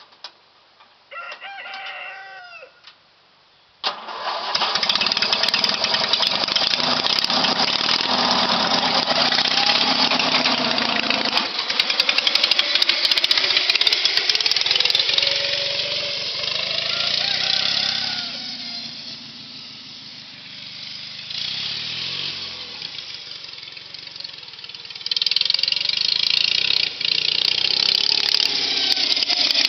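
A rooster crows briefly about a second in. About four seconds in, a riding lawn mower's engine starts suddenly and runs loudly as the mower drives across the field, its pitch rising and falling as it passes and moves away.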